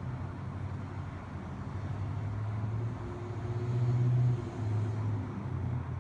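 Low engine rumble that shifts in pitch a few times and swells about four seconds in.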